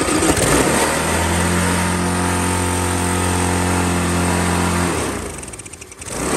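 Walk-behind lawn mower's vertical-shaft petrol engine running at a steady high speed while its throttle linkage is worked by hand. About five seconds in it drops off, then picks up again near the end.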